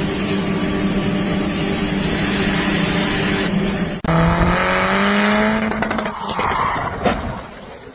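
A vehicle engine running hard with a steady hum over a loud rushing noise. After a sudden break about four seconds in, an engine revs up with rising pitch, then fades toward the end.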